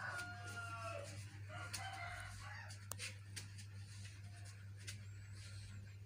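A rooster crowing: a long call that tails off in the first second or so, then a shorter call, over a steady low hum. A few light clicks follow later.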